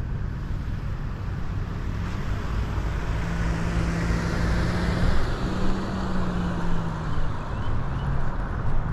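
A motor vehicle driving past, its engine hum and tyre noise swelling about halfway through and then fading, over steady traffic noise.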